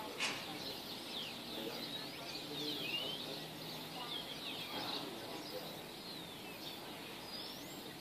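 Dawn chorus of small birds: many short, quick chirps and twitters that overlap throughout. A single sharp click comes just after the start.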